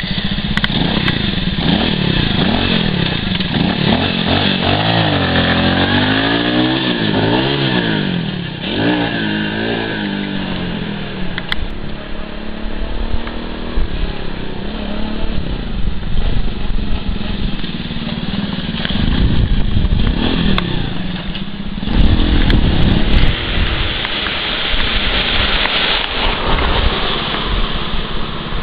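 Small cruiser-style motorcycle engine running as the bike is ridden along the street, its note rising and falling with the throttle and as it passes, loudest about twenty-two seconds in.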